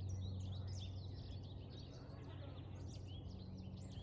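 Drone of a Cessna 310R's twin piston engines fading as the plane flies away, with small birds chirping throughout.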